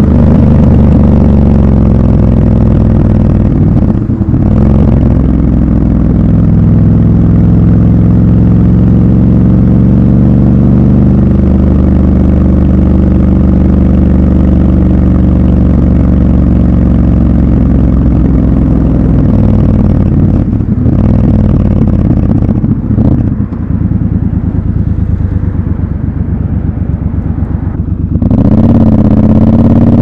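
Triumph Scrambler 1200 XC's parallel-twin engine running under way in city traffic. The engine note dips briefly about four seconds in and again around twenty seconds, runs quieter for a stretch, then rises strongly with climbing revs near the end.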